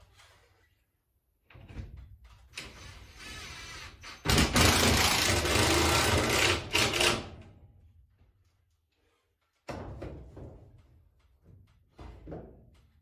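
Cordless drill running, loudest for about three seconds in the middle as it drives a screw through the top of a timber mirror frame into the wall, with a softer stretch of running just before. A few knocks and thumps before and after.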